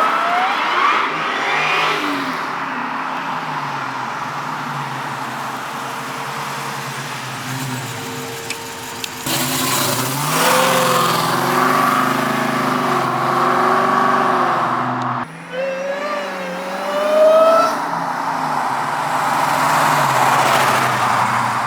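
Supercharged Hellcat HEMI V8 in a 1969 Dodge Charger running under load, accelerating with its pitch rising in several pulls. The sound breaks off abruptly and resumes about nine and fifteen seconds in.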